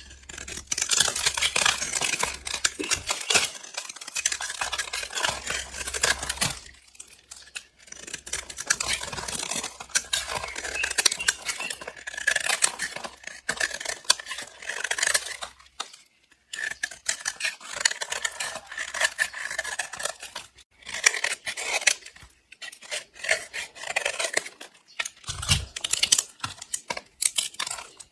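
A blade slicing through bars of soap with a dry, crunchy crackle, in several long cuts with short pauses between them, then shorter, choppier cuts near the end.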